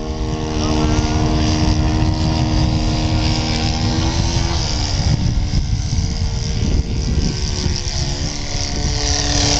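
Engine of a radio-controlled Me-109 model warplane running steadily on its landing approach, its tone dropping away about halfway through.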